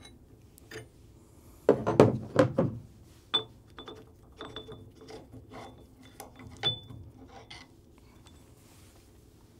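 Harmonic damper installer tool being loosened with wrenches and unthreaded from the crankshaft: metal clinks and clanks of wrench and tool. A cluster of louder knocks comes about two seconds in, then scattered lighter ticks, a few with a short metallic ring.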